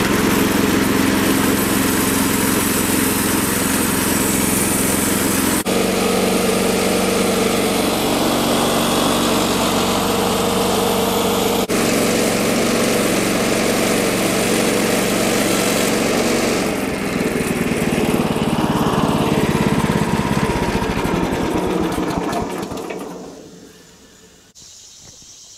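Woodland Mills HM-126 portable bandsaw mill running under load, its gasoline engine driving the band blade through a white oak cant in a steady cut. Near the end the sound falls away over a couple of seconds.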